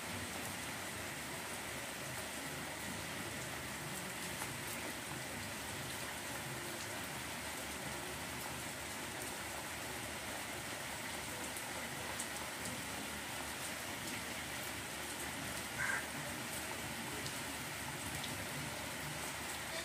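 Steady, even background hiss with no speech, and a brief faint sound about three-quarters of the way through.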